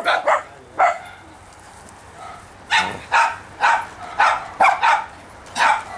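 Small pinscher dogs yapping with sharp, high barks: three quick ones at the start, then after a short pause a run of about seven barks, roughly two a second. The dogs are excited while waiting to be fed pieces of chicken nugget.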